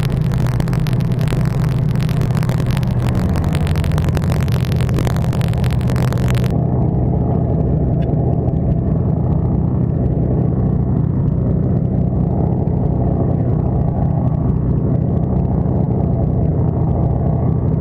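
Boat engine running with a steady low drone. A hiss over the top cuts off abruptly about six seconds in.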